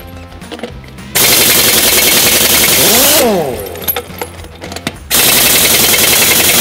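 Pneumatic impact wrench hammering lug nuts loose on a semi-truck wheel. There are two bursts of about two seconds each, and each ends in a rising-then-falling whine as the wrench spins free. Quieter clinks come between the bursts.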